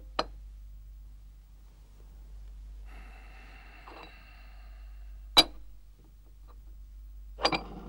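Porcelain lidded teacup (gaiwan) being handled: the lid scrapes on the cup with a faint thin ringing, then clinks sharply against it a little past halfway. A brief clatter of small clicks follows near the end.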